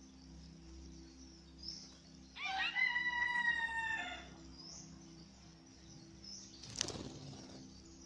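A rooster crowing once, a few bent notes rising into a long held note, starting a little over two seconds in. Faint high chirps from a small bird recur throughout, and near the end there is a single short sharp snap.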